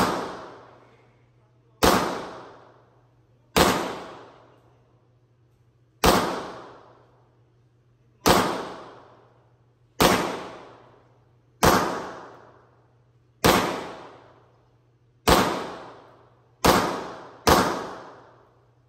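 Semi-automatic pistol fired eleven times in slow single shots about two seconds apart, the last two closer together. Each shot rings on in a long echo off the concrete range walls.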